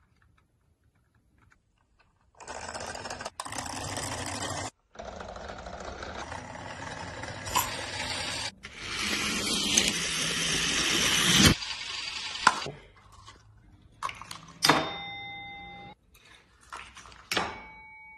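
Homemade chain-reaction contraption running: a long stretch of rolling, scraping noise broken by sharp knocks, then a bell-like chime struck twice, each strike ringing on at a steady pitch, the second near the end.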